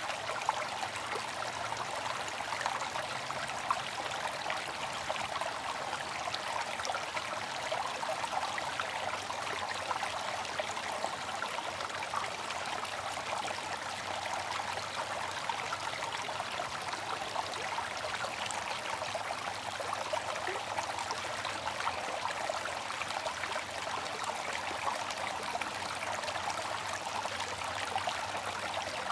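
Bamboo water fountain: water trickling and spattering steadily, an even rush with many small splashes and no pauses.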